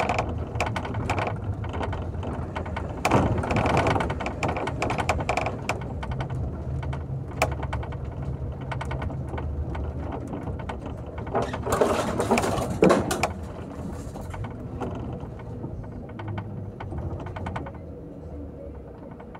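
Rattling and clicking of fittings inside a moving bus over a steady low engine drone, with a louder rush of noise about twelve seconds in before it settles quieter near the end.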